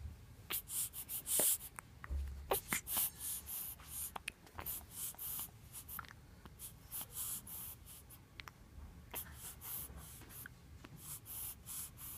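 A baby hiccuping, short sharp hics recurring every second or two, over a steady scratchy rustling.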